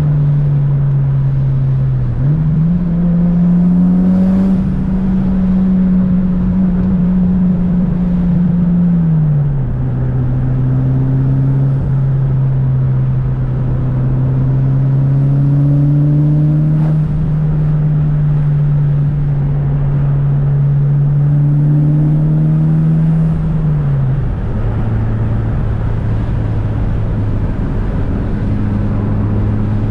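Tuned Mitsubishi Lancer Evolution VIII's turbocharged 2.0-litre four-cylinder running under way, a steady drone. The revs jump up about two seconds in, fall back around ten seconds, climb slowly, then drop again near twenty-four seconds.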